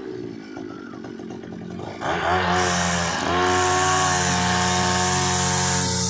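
Zomax ZNG 4303 two-stroke petrol chainsaw revving up suddenly about two seconds in, dipping briefly, then running steadily at full throttle.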